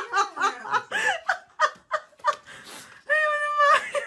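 People laughing and snickering in quick, choppy bursts. About three seconds in there is a held, high-pitched voice sound lasting under a second.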